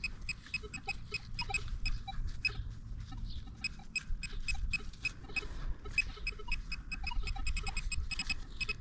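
Metal detector beeping in rapid, irregular short chirps while closing in on a buried target in a freshly dug hole, over low rustling handling noise.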